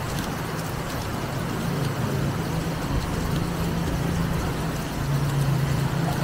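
A motor vehicle's engine running with a steady low hum under the hiss of heavy typhoon rain, the engine getting louder about five seconds in.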